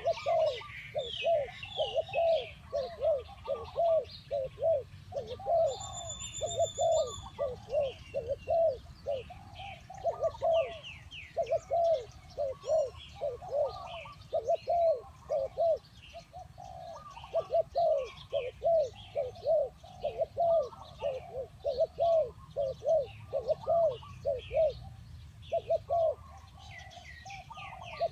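Spotted doves cooing: a continuous run of short, low, arched coos, with small birds chirping higher over them.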